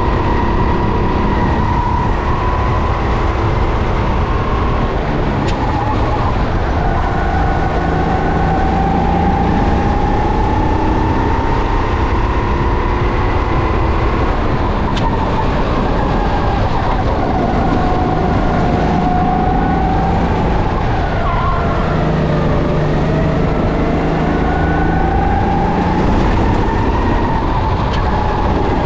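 Go-kart engine at racing speed, heard onboard. Its pitch climbs slowly and drops again several times as the kart accelerates down straights and slows for corners, over a steady low rumble.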